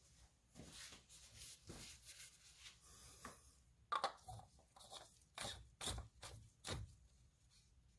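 Faint handling noises: light rustling and scraping with a sharp click about four seconds in and a few soft knocks after it.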